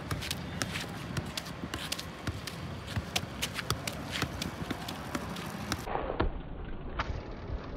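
A football being juggled on foot: a quick, uneven run of sharp taps as the ball is kicked up again and again, several a second.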